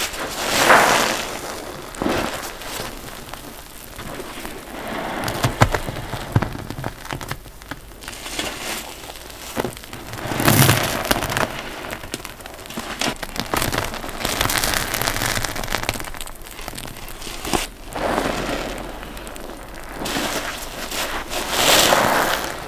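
Wet block sponges squeezed and rinsed by hand: water squelching and pouring out in repeated swells, with many small crackles throughout.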